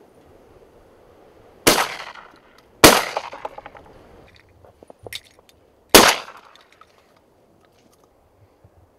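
Three shotgun shots fired with Eley VIP Steel cartridges, each a sharp report with a short echoing tail. The first two come about a second apart and the third about three seconds later, with a few light clicks just before it.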